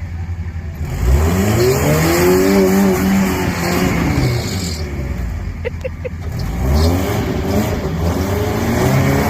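An engine revving up twice: its pitch climbs about a second in and holds for a few seconds, drops back, then climbs again just before the end.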